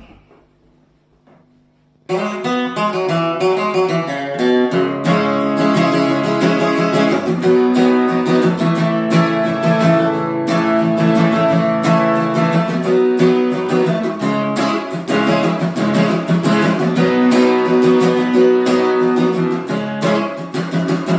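Acoustic guitar played with picked notes and strums: an instrumental intro that starts about two seconds in, after a faint low start.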